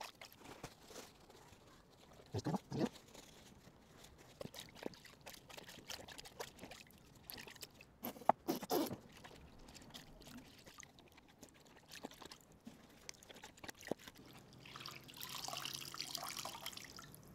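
Quiet splashes and drips of soapy water in a plastic bowl as a motorcycle air filter is washed by hand, with a longer swish of water near the end as the filter is dunked.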